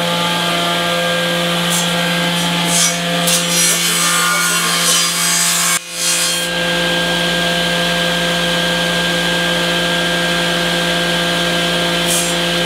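Woodworking table saw running with a steady motor hum. Short bursts of wood being cut or rubbed against the blade come a few seconds in and again near the end.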